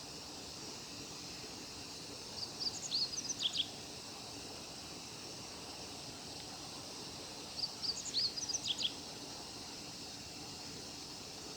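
Male meadow bunting singing: two short, quick songs of high, sharp notes, about five seconds apart, over a steady outdoor hiss.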